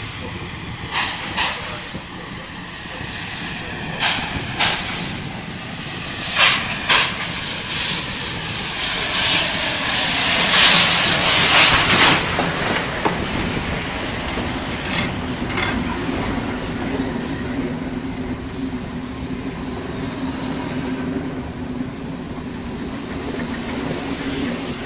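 Polish Pt47 two-cylinder steam locomotive pulling away with a train. Its exhaust comes in slow paired chuffs that quicken as it draws near, and a loud rush of steam comes as it passes about ten to twelve seconds in. Its carriages then roll steadily past on the rails.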